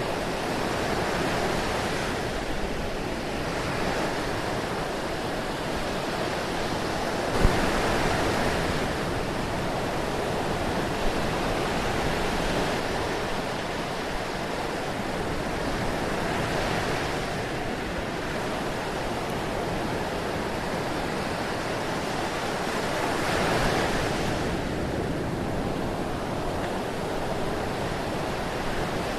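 Ocean surf: a continuous wash of waves that swells and falls back every few seconds. A brief sharp knock stands out about a quarter of the way in.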